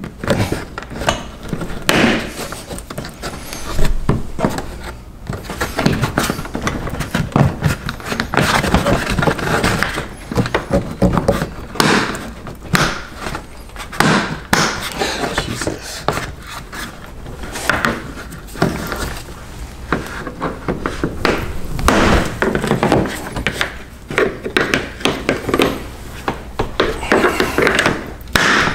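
Irregular plastic knocks, clicks and scrapes: a flathead screwdriver prying at clips while the plastic fender liner and bumper cover of a 2016 Honda HR-V are pulled and flexed by hand.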